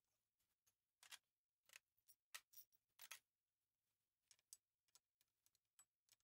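Near silence, with faint scattered clicks and taps of gloved hands handling parts at a car's rear wheel hub, a handful of them clustered about a second to three seconds in.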